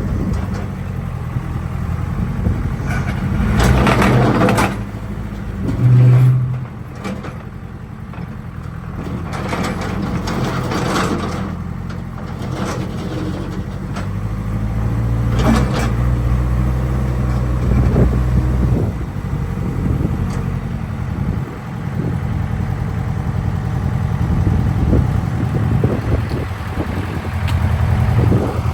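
Case 580 Super K backhoe's Cummins 4-390 (4BT) four-cylinder diesel running as the machine is driven and worked, its engine note rising and falling under load. A few short bursts of noise from the machine sit on top, around four, ten and fifteen seconds in.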